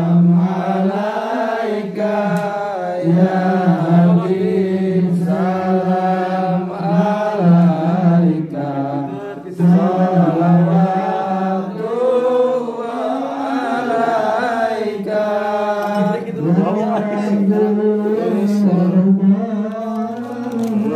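Voices chanting Islamic devotional verses (shalawat) of a marhaban ceremony in a steady, melodic sing-song. The phrases rise and fall, with short pauses between them.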